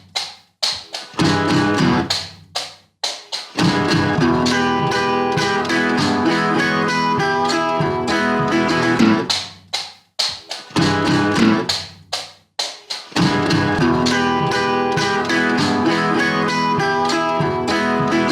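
Background music led by guitar, with a rhythm of short stops and restarts several times.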